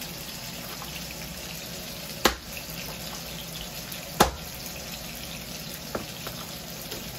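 Cleaver chopping raw chicken on a plastic cutting board: two sharp chops about two seconds apart, then a couple of lighter knocks near the end, over a steady hiss.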